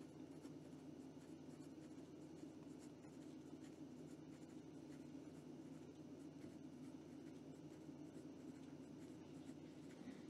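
Penbbs 492 fountain pen's fine nib writing quickly on notebook paper: faint scratching pen strokes, one after another, over a steady low hum.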